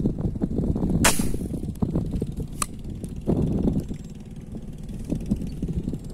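Homemade spear gun fired at fish in the lake: one sharp snap about a second in that rings briefly, then a shorter click about halfway through, over a low rumble of wind on the microphone.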